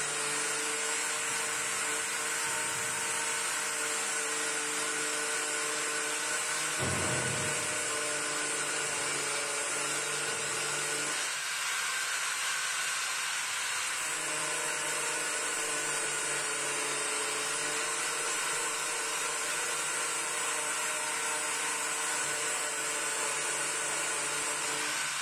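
Angle grinder with an 80-grit flap disc grinding down a welded seam on a car's steel wheel arch, running steadily. For a few seconds around the middle it runs off the metal before going back to grinding.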